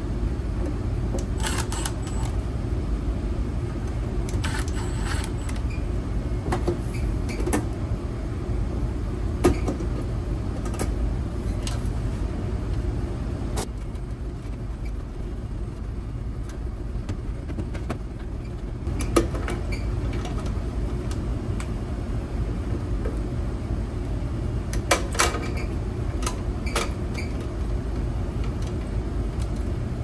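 Steady low drone of running air-handling equipment, with scattered sharp clicks and knocks from hand tools on a metal duct smoke detector housing as its cover comes off and its wires are worked.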